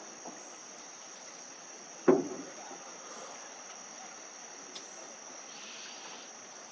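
A steady high-pitched insect drone, with one sharp knock about two seconds in and a faint tick near the end.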